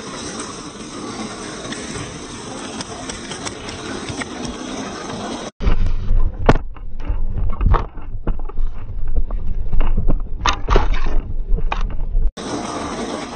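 RC4WD TF2 Toyota Hilux scale crawler driving over loose gravel and rock, its tyres crunching and scraping. About halfway the sound becomes much louder and closer, with a heavy low rumble and many sharp knocks and scrapes of rock against the tyres and body, then drops back shortly before the end.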